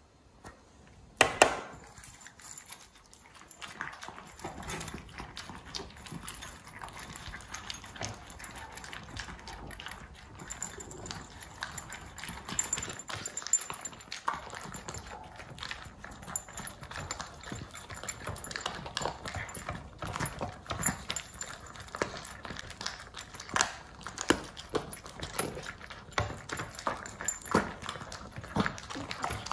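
Small poodles eating dry kibble from ceramic bowls: continual irregular crunching and chewing, with teeth and muzzles clicking against the bowls. One louder knock about a second in.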